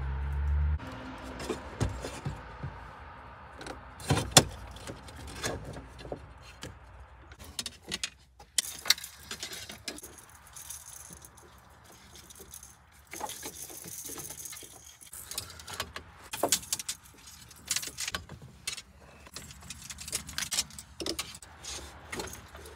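Fishing rods and reels being handled and hung in overhead bungee rod holders: irregular clicks, knocks and rattles as reel parts and rod blanks knock against each other, the sharpest knock about four seconds in.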